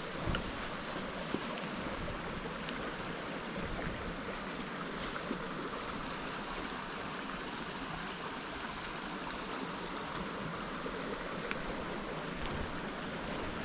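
Steady rush of flowing water, with a few faint clicks and knocks.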